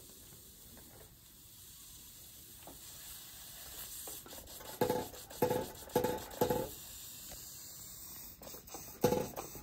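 A vintage Märklin toy steam engine runs with a faint steady hiss while the Metallbaukasten-built toy hammer it drives knocks down. There are four ringing strikes about half a second apart starting about five seconds in, then another near the end.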